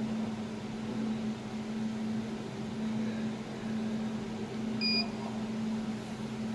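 Jewelry laser welding machine humming steadily while switched on, with one short electronic beep from its control panel about five seconds in.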